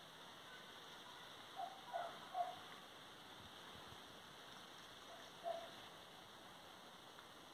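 Faint animal calls, short and sharp, three in quick succession about two seconds in and one more a little past halfway, over a steady outdoor hiss.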